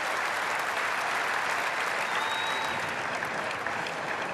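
Crowd in the stands applauding, a dense, steady clapping without a break.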